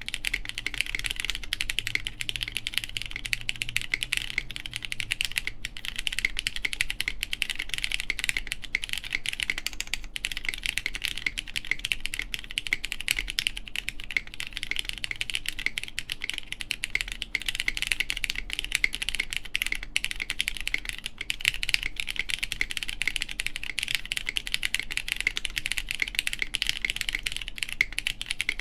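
Continuous fast typing on a plateless mechanical keyboard with lubed, filmed Cherry MX Brown tactile switches and GMK keycaps: a steady, dense stream of key clacks with occasional spacebar presses.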